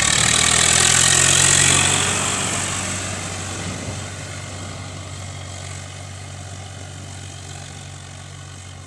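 Swaraj 744 FE tractor's three-cylinder diesel engine running steadily as it pulls a trailer past through a soft, muddy paddy field. It is loudest about a second in and then fades as the tractor moves away.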